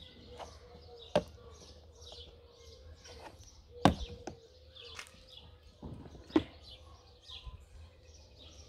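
Snap latches of a hard plastic carrying case clicking open and the lid being handled, giving several sharp plastic clicks spread over a few seconds. Small birds chirp repeatedly in the background.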